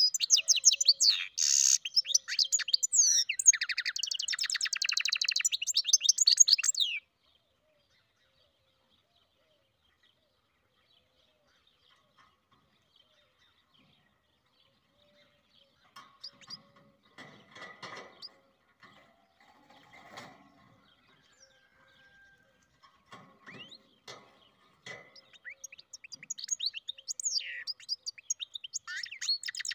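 Goldfinch × canary mule (hybrid finch) singing a fast, high twittering song. The song breaks off about seven seconds in and, after a long pause with only faint scattered sounds, starts again near the end.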